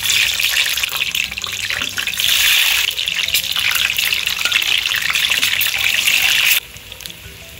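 Hot oil sizzling loudly as peeled hard-boiled eggs are slid off a wooden spoon into the pan to fry. The sizzle drops away suddenly about six and a half seconds in.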